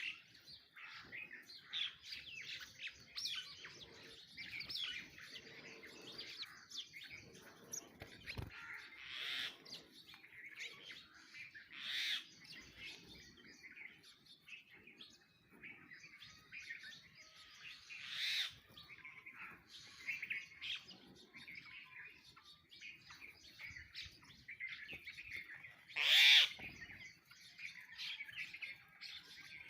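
Sparrows chirping busily and continuously at a feeding spot. A few louder calls stand out about twelve, eighteen and twenty-six seconds in, and the last is the loudest.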